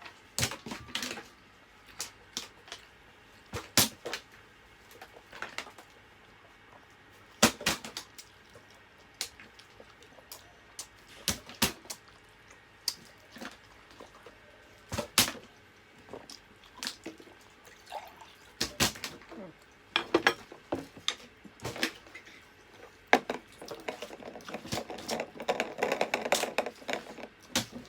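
Close-up eating sounds of a seafood meal: irregular wet clicks and smacks of chewing and slurping, mixed with utensils and shells knocking on dishes. A busier run of small noises comes near the end.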